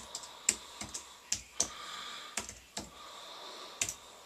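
Typing on a slim, low-profile computer keyboard: irregular keystroke clicks, some in quick runs of two or three, with short pauses between.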